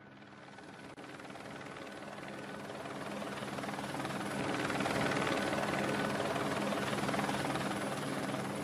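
Air ambulance helicopter's rotor and turbine running, with rapid blade pulsing over a steady low drone. It grows louder over the first five seconds, then holds steady.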